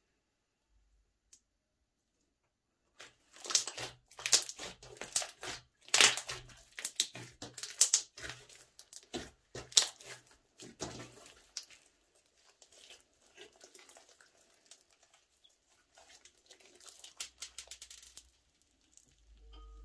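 Hands kneading, squeezing and stretching a lump of thick slime, making wet clicks, pops and crackles as air pockets in it burst. The sounds start about three seconds in and come thick and loud for several seconds, then turn softer and sparser toward the end.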